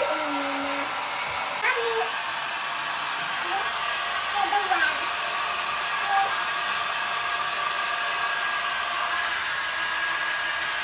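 Handheld hair dryer blowing steadily on wet hair, a constant rush of air with a steady whine.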